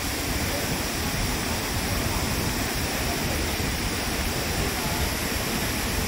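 Dudhsagar Falls in monsoon flood: a huge volume of water crashing down the cliff in a steady, unbroken rush.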